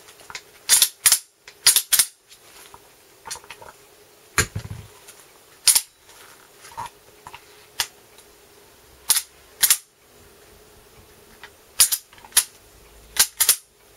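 Sharp metallic clicks and clacks from the action of an ICS M1 Garand airsoft electric gun as its operating rod handle and dummy bolt are pulled back, caught and released, about a dozen, often in quick pairs. One duller knock comes about four and a half seconds in.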